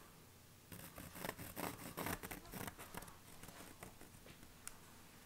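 Pencil scratching on veg-tan leather in a run of short strokes as it traces along the edge of a paper pattern, the strokes thinning out after about three seconds.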